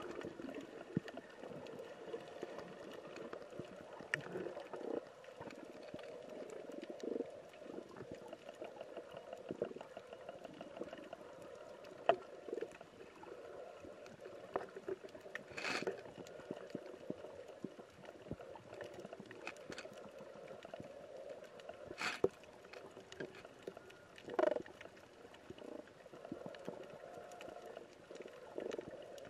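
Muffled underwater ambience recorded with the camera submerged: a steady low wash with scattered small clicks and crackles, and a few louder pops spread through.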